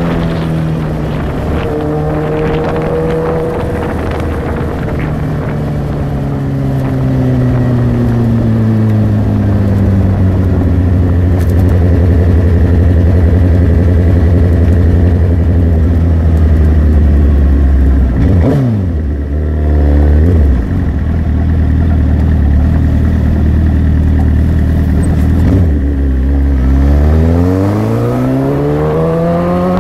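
The motorcycle's own engine, heard up close: it winds down as the bike slows, settles into a low steady idle, then climbs sharply in pitch as the bike accelerates away near the end.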